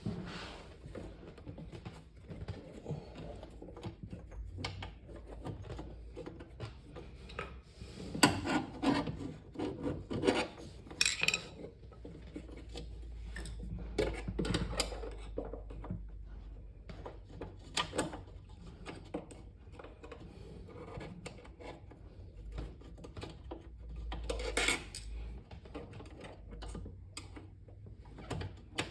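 Irregular scraping, rubbing and knocks of hands working a refrigerator's roller wheel and its metal pin into the wheel brackets, with scattered sharp clicks.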